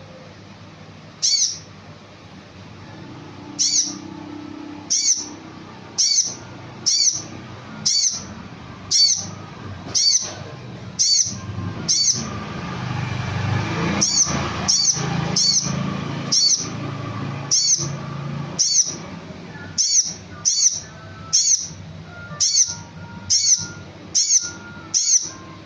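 A konin bird's short, high call repeated about once a second, coming a little faster in the second half, over softer chirps and a low background. It is a lure (pancingan) recording, played to prompt a caged konin to sing.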